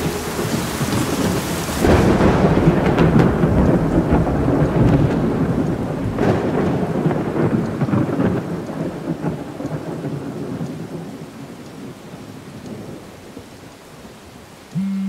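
Heavy rain with rolling thunder, loudest about two seconds in, then easing off to steadier, quieter rain. A steady low buzz starts at the very end.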